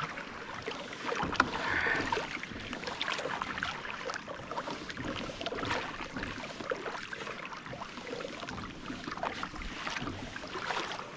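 Water rushing and splashing along the hull of a boat under way, with wind noise on the microphone.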